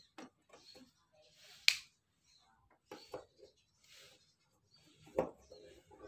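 Long screwdriver backing screws out of the metal top cover of an MA McLelland GE-62 graphic equaliser: scattered light clicks and scrapes of the bit in the screw heads. A sharp metallic click stands out about two seconds in, and another about five seconds in.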